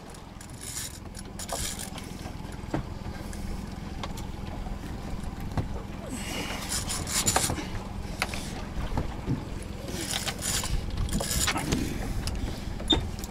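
Water sloshing against a small boat's hull, with a steady low wind rumble on the microphone, irregular gusts of hiss, and scattered small knocks.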